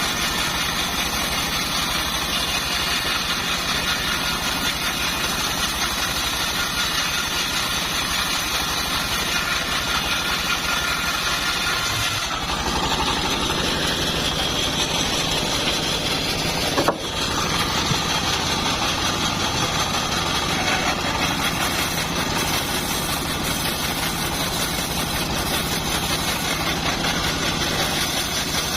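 Homemade band sawmill running with a steady, continuous mechanical drone. The sound shifts slightly a little before halfway, and there is one sharp knock a little past halfway.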